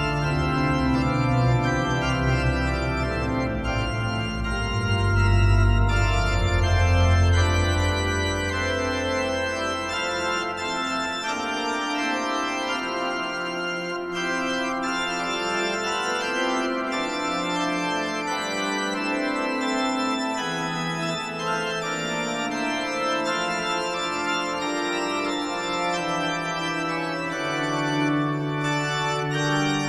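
Organ music: slow, sustained chords, with deep bass notes under them for roughly the first ten seconds that then drop away.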